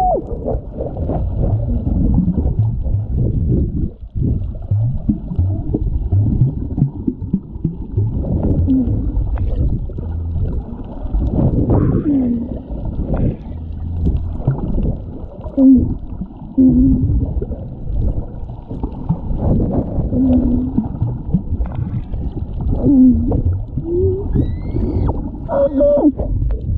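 Underwater sound: a steady low rumble of moving water, with short moaning calls that slide up and down in pitch every few seconds, typical of humpback whale song carrying through the water.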